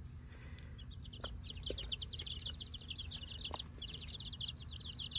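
A flock of young chicks peeping rapidly and without a break as they feed, with a few faint ticks among the peeps.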